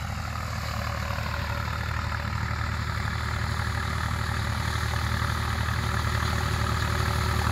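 IMT 539 tractor's three-cylinder diesel engine running steadily while mowing, gradually growing louder as it drives closer.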